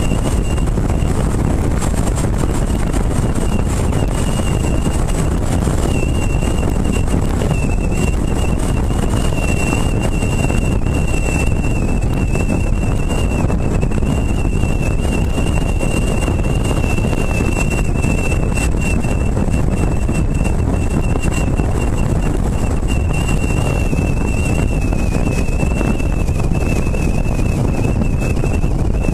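Steady wind rush and road noise on a camera mounted on the roof of a moving car, with a thin, slightly wavering whistle running through it.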